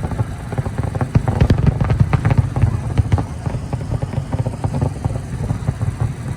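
Fireworks display: a dense run of sharp bangs and crackles over a continuous low rumble, the bangs thinning out in the second half.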